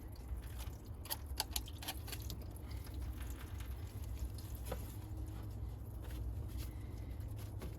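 Baking soda solution dripping and pattering off a truck's battery tray and cable ends after being poured over them, with a few small clicks and ticks, over a steady low hum.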